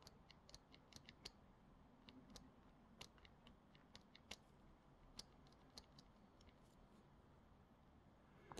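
Faint, irregular plastic clicks of a Geekvape Legend 2 vape mod's fire button being pressed over and over, about twenty through the first six seconds and one more near the end. The button has gone squishy and catches on the loose top part of the display.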